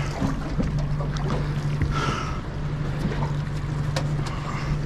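Boat engine idling with a steady low hum, with water noise around the hull and a short splashy burst about two seconds in.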